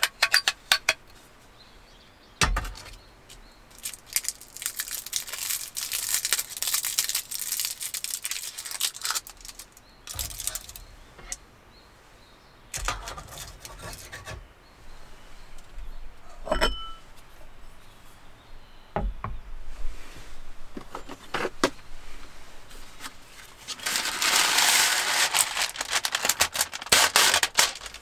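Handling sounds at a wooden table: scattered clicks and knocks as a small metal pocket stove and its fuel tablet are set up, rustling of packaging, and a ringing clink about two-thirds of the way through. Near the end a paper packet is opened and rustled for a few seconds.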